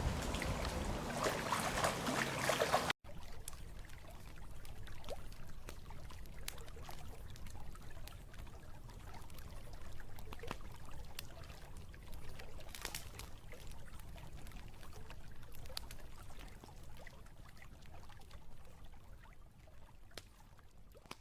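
Water trickling and pouring, like a small stream, with scattered small ticks. A louder rushing noise in the first three seconds cuts off suddenly, and the trickling fades slowly near the end.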